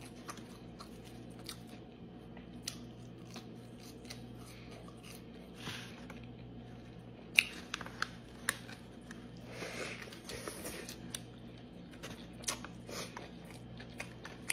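Close-miked eating of a triple cheeseburger and fries: soft chewing with scattered sharp mouth clicks, and a bite into the burger about seven and a half seconds in. A faint steady hum sits underneath.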